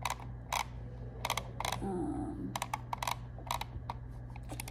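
Clicking at a computer: about a dozen sharp, irregular clicks, some in quick pairs, over a steady low hum.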